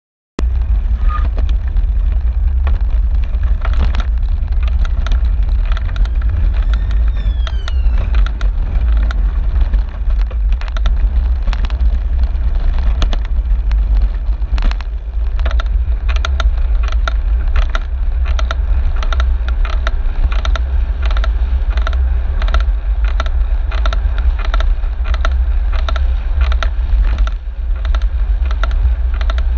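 Bicycle riding along a road, heard from a handlebar-mounted camera: a loud, steady low rumble of road vibration and wind, broken by frequent small knocks and rattles over bumps in the surface. The sound cuts in abruptly about half a second in.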